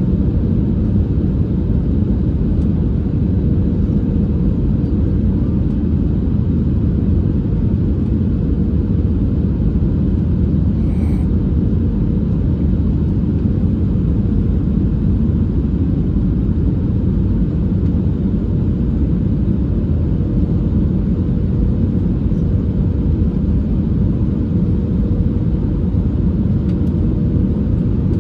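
Steady low rumble inside a jet airliner's cabin on final approach, from the engines and the rush of air, with a faint steady hum above it.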